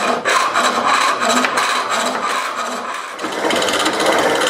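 Turning tool cutting a spinning wood blank on a foot-powered lathe, with a rhythmic pulse of about four a second. About three seconds in, the sound changes to a denser, steadier cutting sound.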